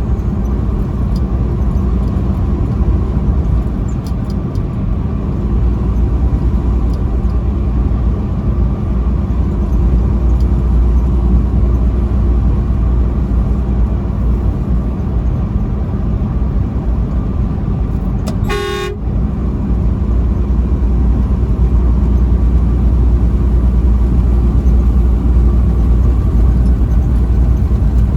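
Semi-truck running at highway speed with a steady low road and engine rumble, and one short horn blast, about half a second long, about two-thirds of the way through.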